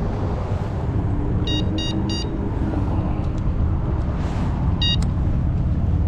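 Carp bite alarm giving three quick single beeps, then one more a few seconds later, over a steady low rumble. Single beeps like these come from small line movements rather than a running fish.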